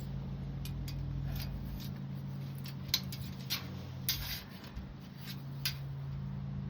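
Light clicks and short scrapes of metal screening and a metal spline being worked by hand in a window-screen frame, over a steady low hum.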